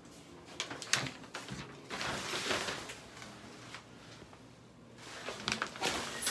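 A few sharp clicks and knocks in a small room, about a second in and again near the end, with a short rustling hiss around two seconds in.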